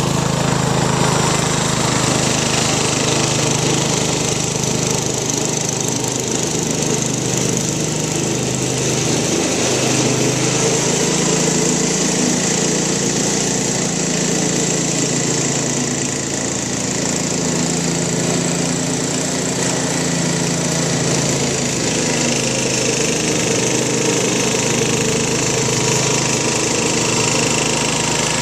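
John Deere 112 garden tractor's single-cylinder Kohler engine running steadily while mowing, its note wavering slightly up and down under the load of the mower deck.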